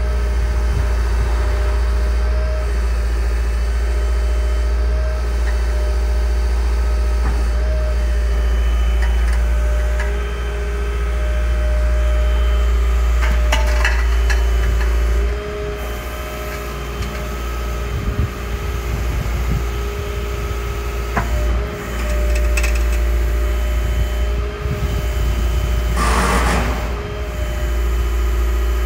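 Liebherr A 309 Litronic wheeled excavator's diesel engine running steadily, a constant low rumble with a steady whine above it. A few short knocks come around the middle and a brief noisy rattle near the end.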